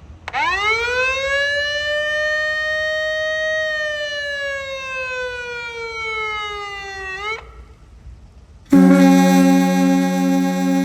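Federal Signal Selectone warning siren sounding one wail: it rises quickly in pitch, holds, then slowly falls and cuts off about seven seconds in. This is the warning that comes before the horns. About a second and a half later a blast of Clark Cooper air horns starts. They are 1940s ship/train/fog horns, sounding a loud, steady, deep chord of several tones.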